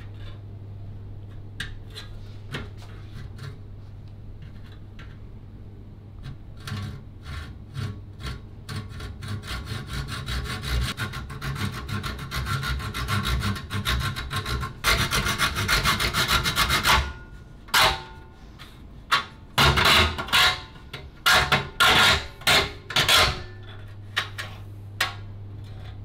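Junior hacksaw with a steel blade cutting into the front of an eGPU enclosure. A few light scrapes start the cut, then quick, steady back-and-forth strokes run until about 17 seconds in. After a short pause come a handful of slower, louder strokes.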